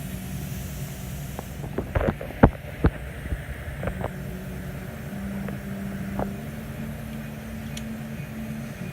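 A few sharp metallic knocks and clicks from tools being handled during air hammer setup, the loudest about two and a half seconds in, over a steady low hum. The air hammer itself is not yet running.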